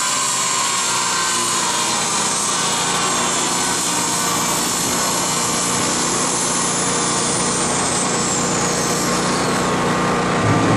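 BMW 3 Series coupe on a chassis dyno, its driven wheels and the dyno rollers spinning down: a high whine that slowly falls in pitch and fades about nine seconds in, over a steady low hum.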